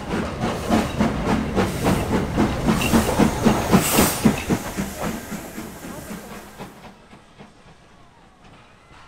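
Steam locomotive working slowly past at close range: a regular chuff of exhaust beats, about three to four a second, over a steady hiss of steam. The loudest moment, with a burst of hissing steam, comes about four seconds in as it passes, then the chuffing fades and drops to faint background near the end.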